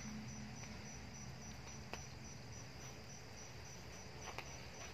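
Cricket chirping in a steady, even pulse of high notes, about four a second. A few faint clicks come from hands working the seedling tray.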